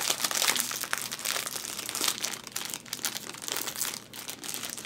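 Clear plastic snack bag crinkling and crackling in the hands as it is pulled and worked open.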